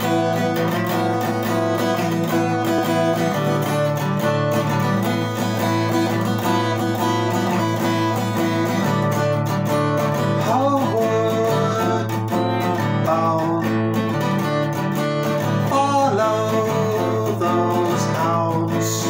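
Steel-string acoustic guitar strummed in a steady chord pattern, the introduction to a song.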